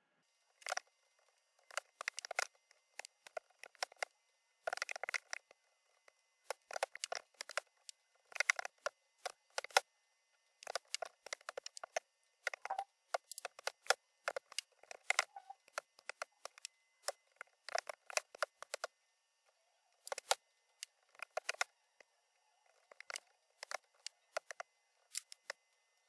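Keys clicking on a computer keyboard in irregular bursts with short pauses, as lines of code are typed.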